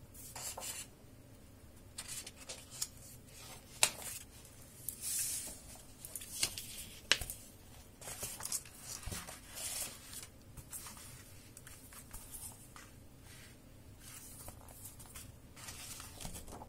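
Hardcover picture book handled by hand: stiff pages turned with papery swishes and rustles, broken by several sharp taps and clicks as the book is closed and lifted.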